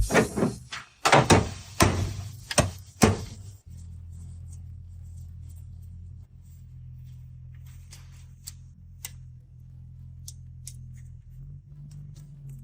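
A run of sharp knocks for about the first three and a half seconds, then a steady low hum with a few faint clicks.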